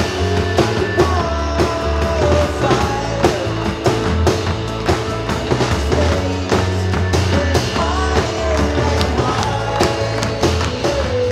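Live band playing a rock-style worship song: drum kit with a steady beat, acoustic guitar and bass guitar under a sung melody.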